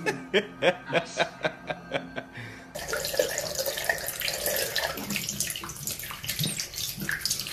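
A quick run of sharp taps, about three or four a second, then, from about two and a half seconds in, tap water running steadily from a faucet and splashing over a small wet marmoset held under it.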